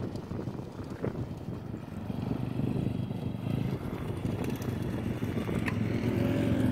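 M2R 140 pit bike's single-cylinder four-stroke engine running as the bike rides toward the microphone, growing steadily louder.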